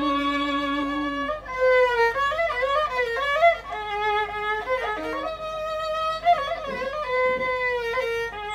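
Bowed fiddle, held upright, playing a solo melody that slides and bends between notes.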